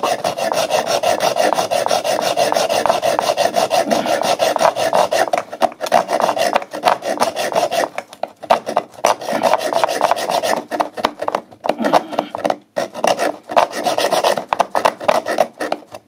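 Small hand hacksaw cutting through a pipe in fast back-and-forth rasping strokes. In the second half the strokes falter, with short pauses, and the sawing stops near the end as the piece is cut off.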